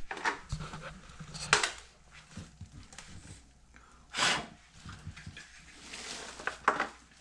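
Plastic and metal parts of a George Foreman grill pedestal stand being handled and fitted together: a few sharp clicks and knocks, loudest about a second and a half in and again near the end, with a short hiss about four seconds in.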